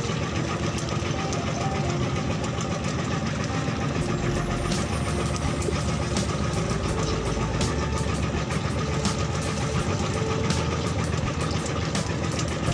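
Fishing boat's engine running steadily, a constant low chugging.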